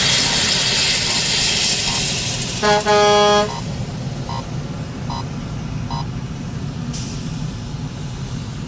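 A truck's horn honks once, a single loud blast of under a second, about three seconds in, over steady road and traffic noise. Afterwards faint short beeps repeat about once a second.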